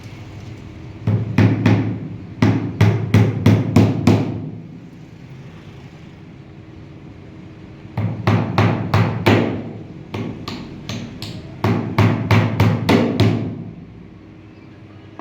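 Hammering: bursts of quick, evenly spaced blows, about four a second, in runs of roughly five or six, with short pauses between the runs.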